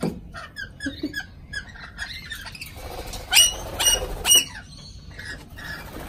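Rainbow lorikeets calling: a quick run of short, high squeaky chirps, then three loud, harsh screeches in close succession a little past the middle.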